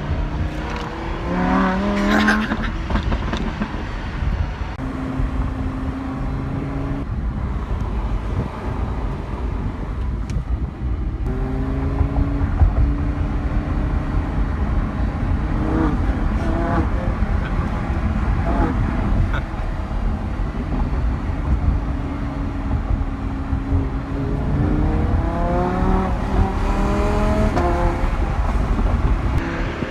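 Lamborghini Huracan LP610-4's V10 engine running as the car drives, with a deep low rumble. Its pitch climbs about a second in and again near the end as the revs rise, and it holds steady cruising notes in between.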